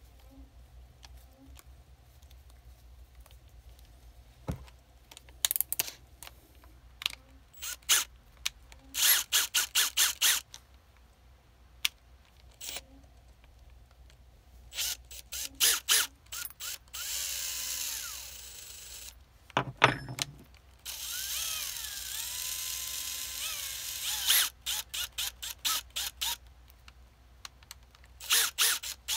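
Keyless chuck of a cordless drill ratcheting in quick bursts of clicks as it is twisted by hand to tighten a drill bit. About two-thirds of the way through, the drill motor runs twice for a few seconds, spinning the chuck with a whine that glides in pitch, with a knock between the two runs.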